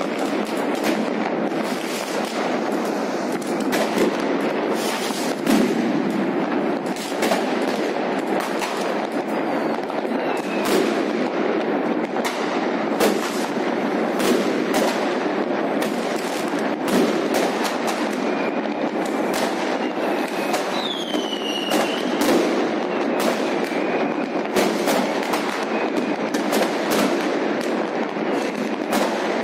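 New Year's Eve fireworks going off without a break: a dense run of bangs and crackling, with a few short whistles, the clearest a little past the middle.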